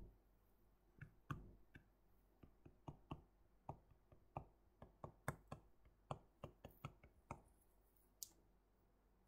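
Faint, irregular clicks and taps of a stylus hitting a tablet screen while handwriting, about twenty of them over some six seconds, with one last tap a second later.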